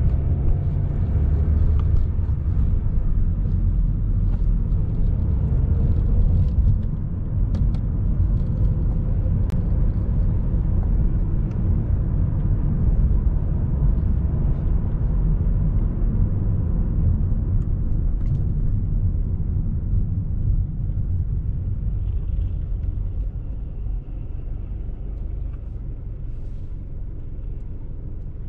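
Steady low road and engine rumble of a car driving. It eases off over the last few seconds as the car slows to a stop.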